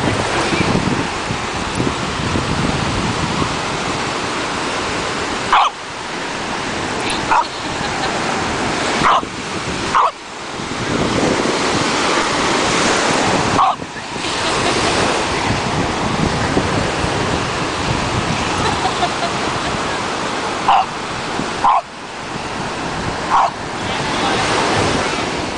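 A French Bulldog's play barks: about eight short single barks, spaced irregularly, over the steady wash of ocean surf and wind on the microphone.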